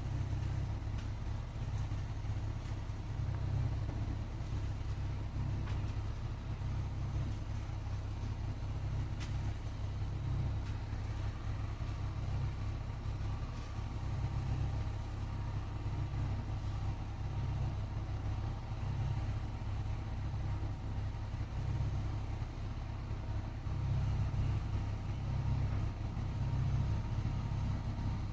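A steady low rumble, rising and falling a little in loudness, with nothing higher-pitched standing out.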